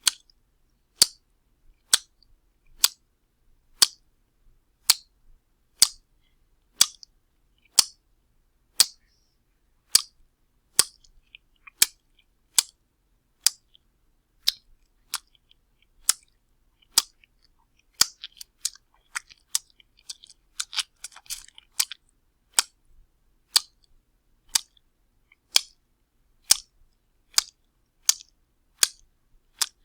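Wet slaps repeated one after another, about one a second, each a sharp smack. Wet smacking and crackling fill the gaps more densely about two-thirds of the way through.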